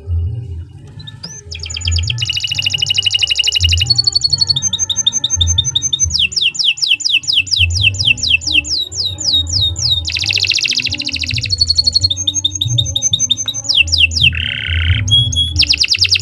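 Domestic canary singing a long, fast song: rapid trills and runs of repeated downward-sweeping notes, switching to a new phrase every second or two.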